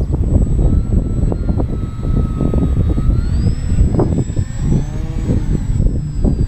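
Heavy wind buffeting on the microphone, with the faint whine of a radio-controlled VisionAire plane's electric motor and propeller in flight. The whine rises in pitch about three seconds in and falls again near the end as the throttle changes.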